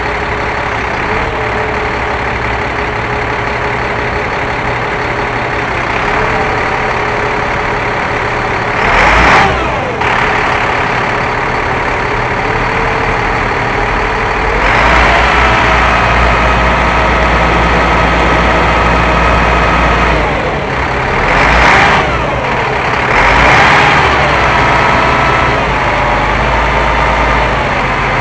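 The crane truck's Cat 3126 diesel engine running steadily while driving the crane's hydraulics as the boom raises and extends. About halfway through the engine note steps up and a steady whine joins it, and three short louder swells with sliding pitch come and go.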